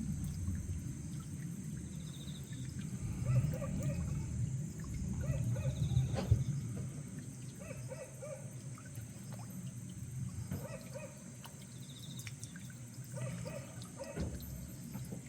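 Frogs calling at a pond: short croaks in groups of two or three, repeating about every two and a half seconds, over a steady low trickle of water.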